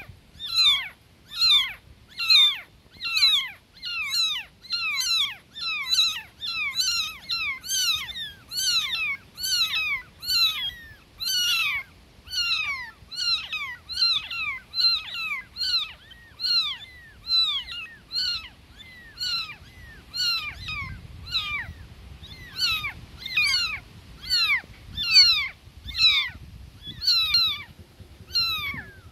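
Newborn kittens meowing loudly for their mother, a nonstop run of short, high-pitched cries, each falling in pitch, about one and a half a second.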